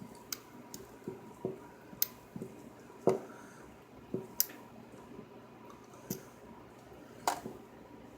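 Lock pick and tension wrench working in a small brass padlock: a dozen or so irregular light clicks and taps of metal on metal, with a sharper click about three seconds in and another near the end.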